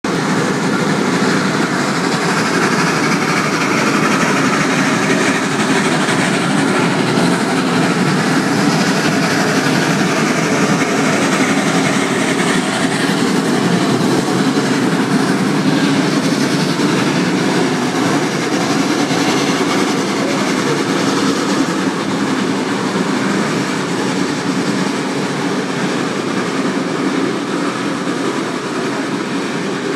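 Steam-hauled excursion train's passenger cars rolling past on the track: a steady, loud noise of wheels on rails that eases a little near the end.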